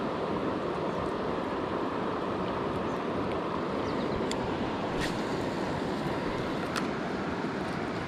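Steady rush of flowing river water, with a few light clicks between about four and seven seconds in.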